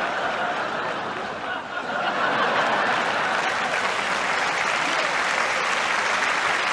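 Tennis crowd applauding, swelling louder about two seconds in and then holding steady.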